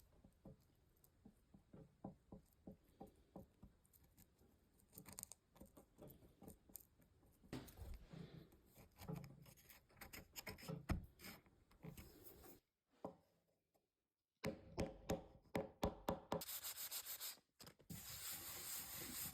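Rubbing on a wooden board by hand: short strokes and light knocks at first, then steadier scrubbing in the last few seconds, with a brief silence about two-thirds of the way in.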